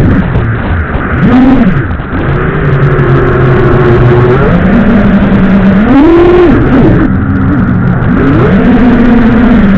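FPV quadcopter's brushless motors, heard through the onboard microphone of the video feed, whining with a pitch that rises and falls with the throttle, swelling up several times.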